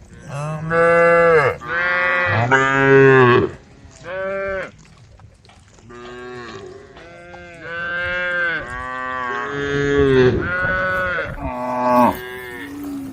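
Cattle mooing: three loud, long moos in the first few seconds and a shorter one, then after a brief lull a run of overlapping calls that continues almost to the end.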